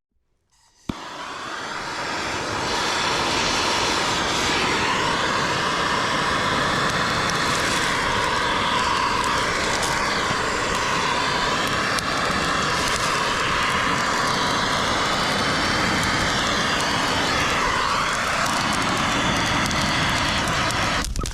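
Husqvarna 450 Rancher two-stroke chainsaw running hard at high revs, its pitch wavering as it cuts wood. It comes in about a second in and builds to full speed over the next couple of seconds.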